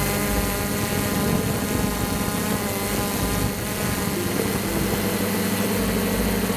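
Cheerson CX-20 quadcopter's brushless motors and propellers whining steadily in flight, as heard from the onboard camera. The pitch shifts slightly a little over two seconds in.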